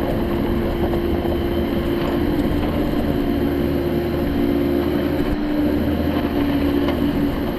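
Bobcat E50 mini excavator's diesel engine running steadily at working revs while the machine is operated.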